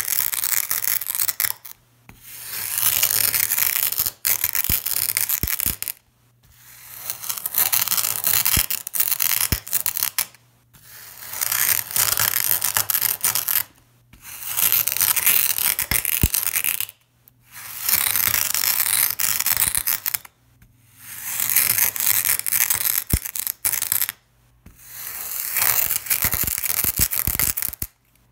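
Packed brown sand crunching and grinding as a clear glass is pressed down through it onto a mirror. About eight long gritty crunches, each a few seconds long, with short pauses between them.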